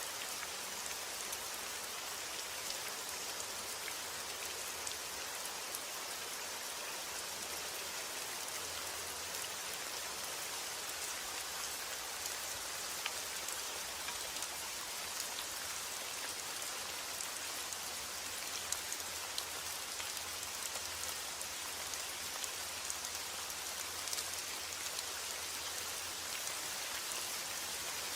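Steady rain falling, an even hiss with many individual drops ticking sharply close by.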